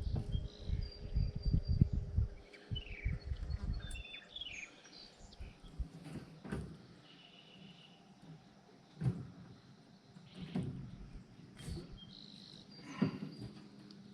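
Handling of a wire rabbit cage: a cluster of low bumps and rattles for the first few seconds, then a few separate clicks. Birds chirp now and then.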